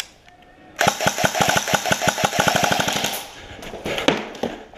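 Airsoft gun firing a long full-auto burst of rapid, evenly spaced shots, starting just under a second in and lasting about two seconds, followed by a few scattered single knocks.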